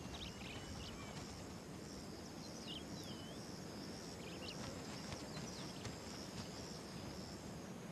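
Grassland ambience: insects trill steadily in a repeating pulse, and short bird chirps and whistles come now and then.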